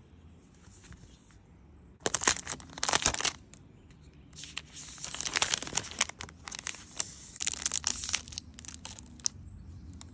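Thin plastic wrapper crinkling and rustling as a tablet is slid out of it: one short burst about two seconds in, then a longer crackly spell from about four to nine seconds in.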